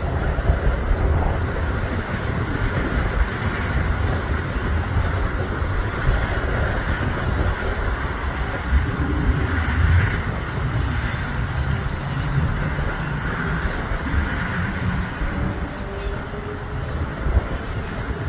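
Steady rumble of cars passing close by on a road, mixed with the distant engines of a twin-engine business jet rolling along the runway after landing.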